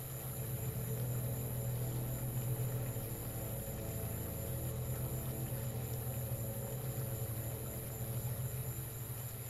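Steady low electronic drone, a deep hum with a thin high whine held above it, swelling a little just after the start and then holding level.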